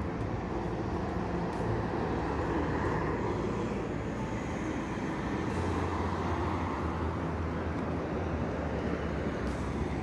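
Steady road traffic: cars and a city bus passing along a multi-lane street, a continuous mix of tyre noise and low engine hum.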